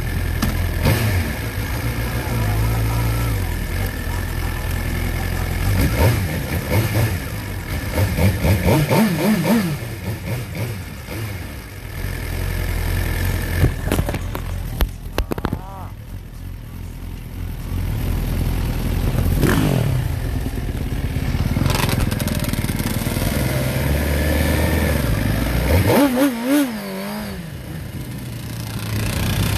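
Motorcycle engine running in slow traffic, revved up and down several times, with the pitch rising and falling in a few sweeps.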